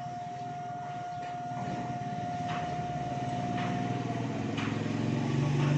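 An engine running with a low hum that grows louder in the second half. A steady high tone fades out about four seconds in, and faint knocks come roughly once a second.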